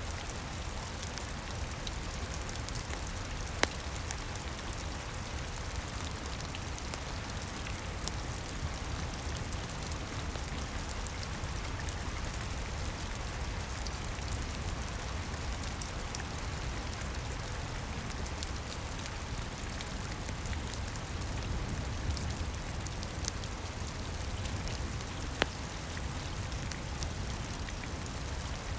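Steady rain: an even hiss with a low rumble beneath it. Two sharp pops stand out, one about four seconds in and one near the end.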